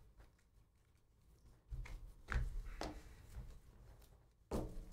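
A stack of Panini Donruss basketball trading cards being thumbed through by hand: faint card-on-card swipes and light taps, a few of them about half a second apart after a quiet start.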